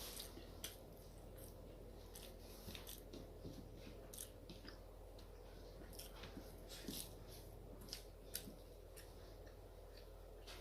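Close-miked chewing of food: irregular soft mouth clicks and smacks, several a second at times, over a faint steady low hum.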